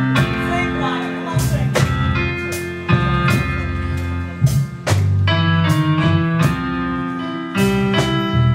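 Live gospel band music: held chords over strong bass notes with a steady drum beat.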